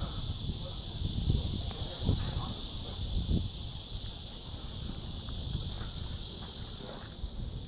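A steady, high-pitched chorus of insects such as crickets or cicadas. Low rumbling and soft knocks sit underneath and ease off in the second half.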